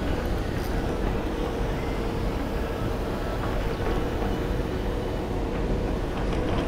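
Shimano Twin Power spinning reel being cranked steadily to retrieve a lure, a faint even whir that stops shortly before the end, over a constant low rumble.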